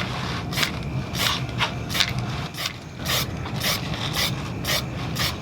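Aerosol spray paint can being worked in a quick, irregular series of short, sharp bursts, about two a second, over a steady low background hum.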